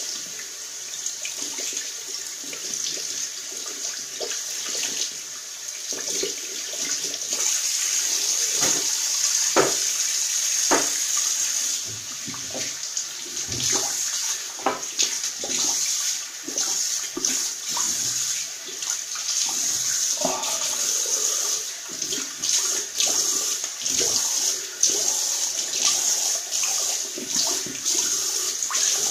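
Bathroom tap running into a sink, a steady hiss with irregular splashes and knocks, as a shaving brush is rinsed out under it.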